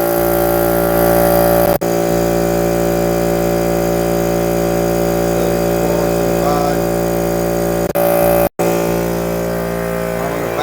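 Electric air compressor running steadily and loudly just after start-up, its motor and pump giving an even mechanical drone, with two brief dropouts.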